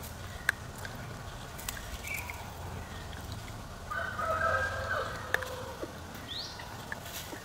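One drawn-out animal call, starting about four seconds in and lasting a little over a second, with a steady pitch, over scattered small clicks and a short high rising chirp near the end.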